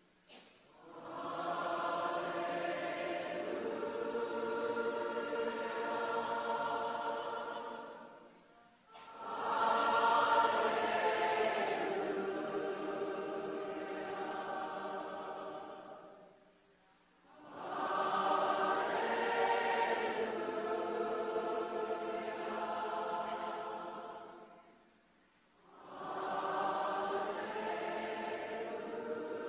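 Choir singing long held phrases in worship music. Each phrase lasts about eight seconds, with a short breath-like break between them.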